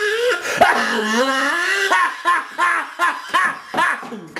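A man laughing: a long drawn-out vocal sound, then a run of short cackles that fades.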